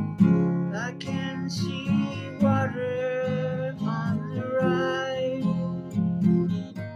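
Acoustic guitar strummed in a steady rhythm, with a melody of long held, sliding notes over it for most of the stretch.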